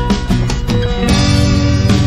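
Background music with guitar, changing to a fuller passage about a second in.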